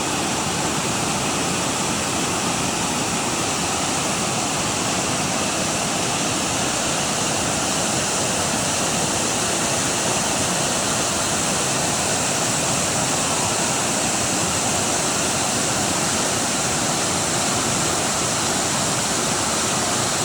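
Rushing water, a steady, unbroken rush that holds the same level throughout.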